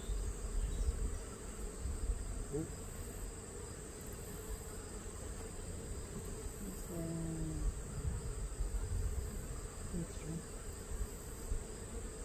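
Honey bees buzzing steadily around an open Langstroth hive as its frames are inspected, with a low rumble underneath.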